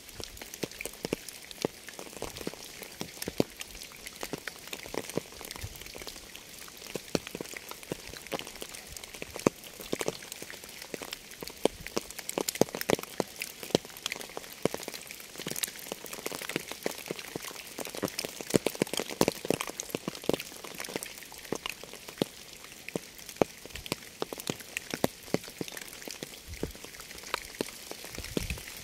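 Rain falling: a steady hiss with many close drops landing as sharp, irregular taps.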